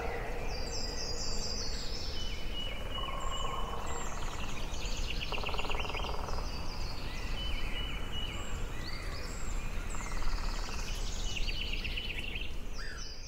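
Birds chirping in short, quickly repeated trills, one after another, over a steady low background rumble.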